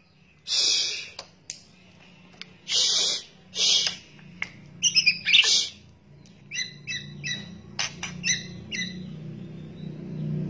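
White-rumped shama giving its harsh kretekan rattle calls, the calls used to lure other shamas. Four loud raspy bursts come in the first half, followed by a run of short, sharp chirps.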